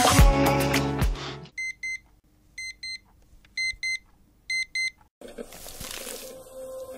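Background music cuts off about a second and a half in. A digital alarm clock then beeps in pairs: four double beeps about a second apart, high and electronic. Near the end a soft hiss with a faint steady hum starts.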